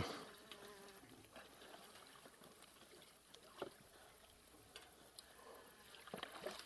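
Near silence: faint outdoor background with a few soft splashes and taps of water at the pond's edge, the clearest a short tap about three and a half seconds in.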